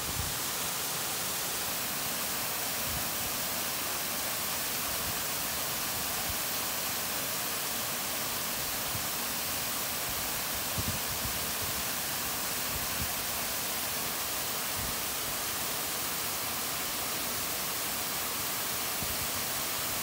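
Waterfall pouring into a pool: a steady, even rushing hiss, with a few soft low thumps.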